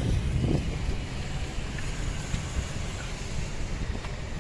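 Low rumble of road traffic mixed with wind noise on the microphone, a little louder in the first second and then steady.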